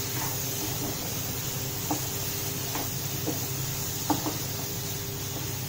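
Wooden spatula stirring boiled potato chunks through masala in a non-stick kadai: a few short knocks and scrapes against the pan, spaced out, over a steady low hiss.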